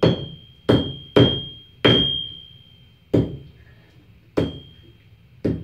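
Hand hammer striking a hot stacked Damascus billet on an anvil: about seven uneven blows, most leaving a high, steady ring. The smith is hammering the layers flat together before forge welding.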